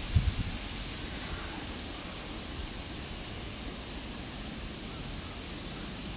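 Outdoor ambience: a steady high-pitched insect drone over wind rumble on the microphone, with a brief low bump just after the start.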